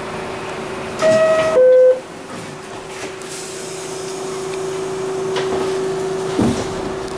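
An R62A subway car's two-tone door chime sounds once, a high note dropping to a lower one, warning that the doors are closing, over the car's steady hum. A short thump comes near the end.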